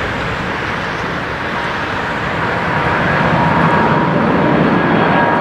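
Jet engines of a Boeing 747-400F on landing approach: a steady rushing jet noise with a faint whine on top, growing louder about halfway through as the aircraft comes nearer.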